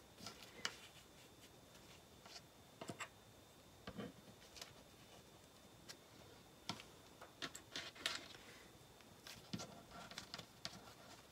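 Faint, irregular small clicks and rustles of sewing clips being clipped onto the curved edge of a fabric pocket, with the fabric being handled.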